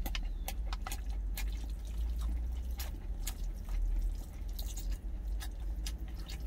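Close-mic chewing with wet mouth clicks, and a wooden spoon clicking and scraping against a stainless-steel food container, over a steady low rumble.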